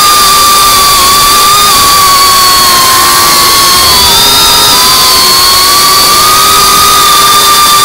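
An FPV drone's electric motors and propellers whine loudly and steadily under a rush of noise. The pitch dips about four seconds in and climbs back as the throttle changes during the dive.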